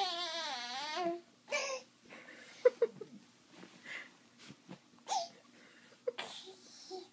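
Baby's high-pitched wavering squeal that ends about a second in, followed by several short breathy gasps and little laugh-like sounds.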